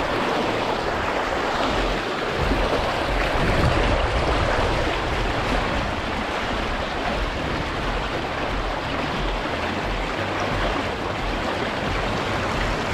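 Steady rush of river water flowing, slightly louder between about two and five seconds in, with an uneven low rumble underneath.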